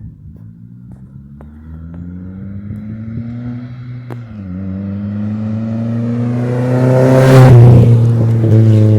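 Chevrolet Astra 2.0 four-cylinder with a straight-pipe exhaust and no muffler, accelerating hard. The revs climb, dip briefly at a gear change about four seconds in, then climb again to a loud peak near the end before easing off.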